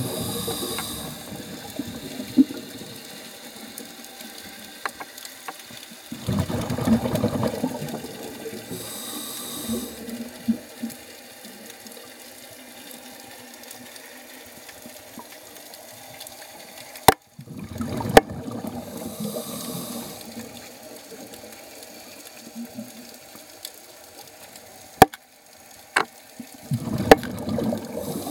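Scuba diver breathing through a regulator underwater: a hiss on each inhale and a rumbling burst of exhaust bubbles on each exhale, about three breaths some nine to ten seconds apart. A few sharp clicks sound near the end.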